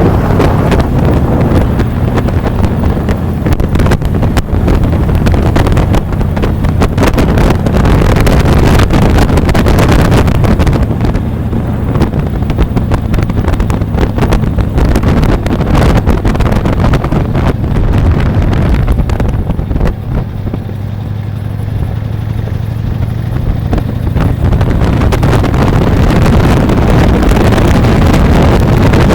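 Motorcycle engine running steadily at riding speed, with wind buffeting the microphone. The engine eases off briefly about twenty seconds in, then picks back up.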